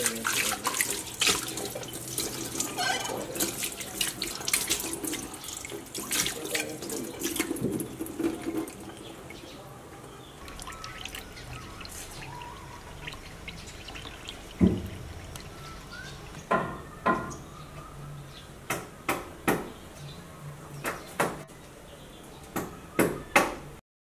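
Tap water running into a sink while a plate is scrubbed and dishes clink. Then it goes quieter, with a single thump about fourteen seconds in and about ten sharp knocks spread over the last seven seconds. The sound cuts off just before the end.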